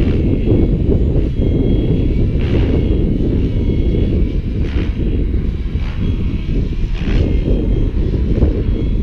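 GAUI X7 electric RC helicopter flying overhead: a thin high motor and gear whine with a rotor whoosh swelling about every two seconds, under a heavy wind rumble on the microphone.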